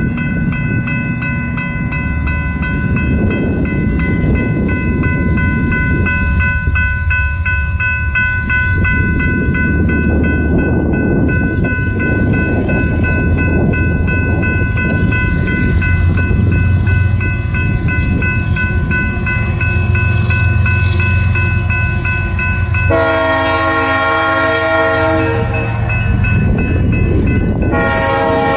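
Railroad grade-crossing bell ringing steadily over the low rumble of an approaching freight train. Near the end the lead Kansas City Southern locomotive's horn sounds a chord, one blast of about two seconds and then a second blast starting just before the end.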